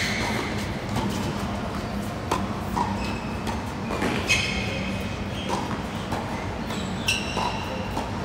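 Tennis ball struck back and forth in a hard-court rally: racket hits on the ball, the louder ones with a short ringing ping from the strings, and ball bounces in between, about half a dozen sharp knocks in all. A steady low hum runs underneath.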